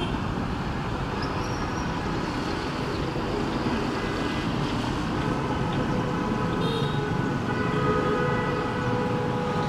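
Steady rumble of vehicle engines on an airport apron, with faint whining tones held throughout.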